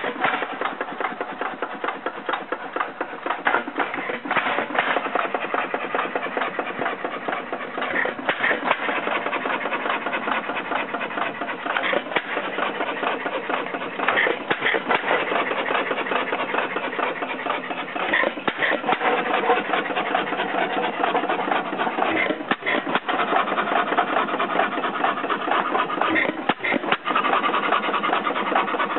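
Restored 1921 Witte headless 4 hp single-cylinder hit-and-miss engine running, a fast, steady mechanical clatter with a few sharper clicks every few seconds.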